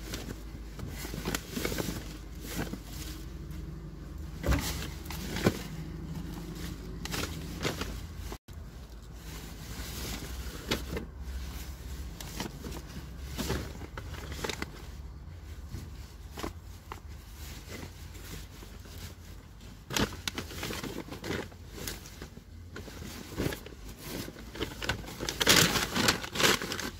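Plastic bin bags and clothes rustling and crinkling as gloved hands rummage through a full garbage container, with a steady low hum under the first third. The crackling grows denser and louder near the end.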